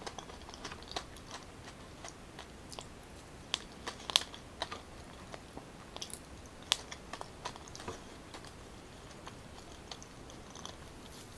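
Close-up mouth sounds of eating soft boiled purple yam: irregular wet clicks and smacks of chewing, a few sharper ones standing out.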